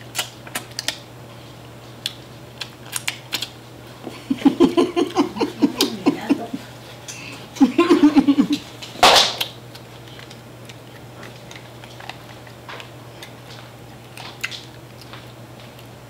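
Sharp clicks and snaps of crab-leg shells being cracked and picked apart while eating, with one louder crack about nine seconds in. Brief muffled voice sounds come twice in the middle, over a steady low electrical hum.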